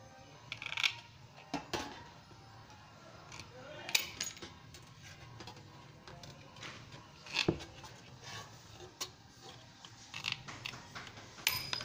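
Aviation tin snips cutting thin sheet metal: irregular sharp clicks and crunches as the blades close, with the loose sheet rattling.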